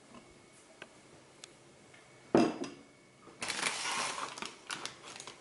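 A glass set down on a wooden tabletop with one sharp knock about two seconds in, followed by a couple of seconds of light clinking and rustling as things are handled.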